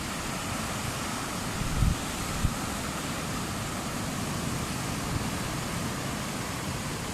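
Steady wash of sea surf and wind, with a couple of brief low wind buffets on the microphone about two seconds in.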